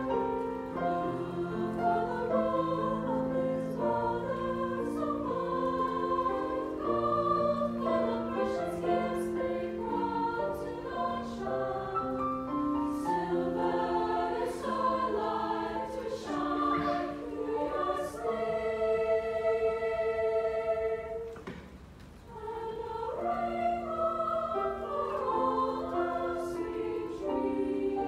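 Large mixed choir singing a song in harmony. About three-quarters of the way through they hold a long chord, stop for a moment, then go on singing.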